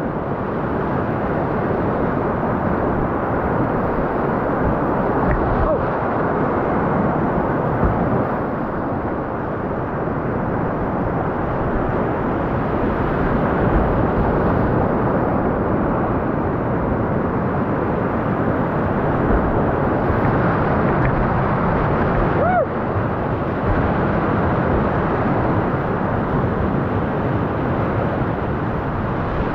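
Whitewater rapids rushing steadily: a loud, even rush of churning river water.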